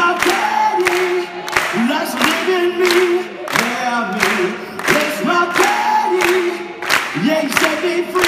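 A man beatboxing into a microphone: a steady beat of sharp hits at about two a second, with wordless sung notes and sliding vocal sounds between them.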